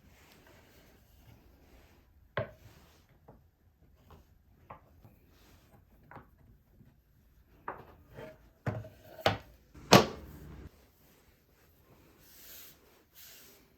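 Wooden boards being handled: scattered knocks of wood on wood, a cluster of them near the end with the loudest about ten seconds in, followed by a brief scrape.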